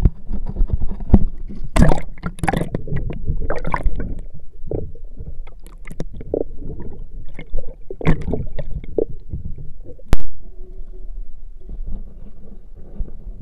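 Water splashing and gurgling around a camera dipped in and out of the sea beside a small boat, with a run of knocks and one loud knock about ten seconds in. After that it settles to a steadier, quieter wash.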